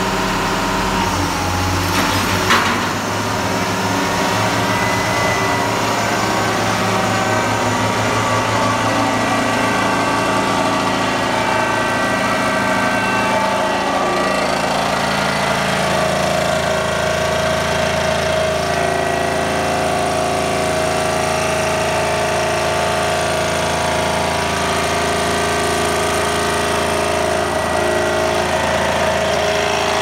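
MKT V-5E vibratory pile hammer with a timber pile clamp running on test, hanging free, driven by a hydraulic power pack: a steady mechanical drone. There is a sharp clank about two and a half seconds in, and the pitch pattern shifts about halfway through.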